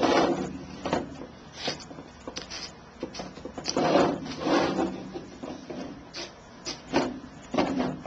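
A sharp X-Acto blade slicing through wet goat skin as the excess is trimmed from around a banjo rim, along with the skin being handled and rubbed against the hoop. Irregular scraping and rasping strokes with short ticks in between, the longest around the middle and near the end.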